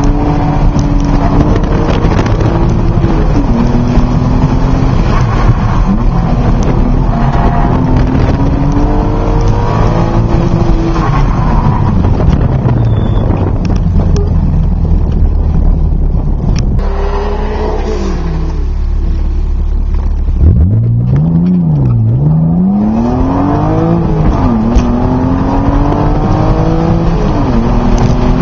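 BMW M Coupe's straight-six engine heard from inside the cabin, revved hard through an autocross course: its pitch climbs and drops again and again. A little past halfway the revs sink low and steady for a few seconds, then dip and climb sharply again.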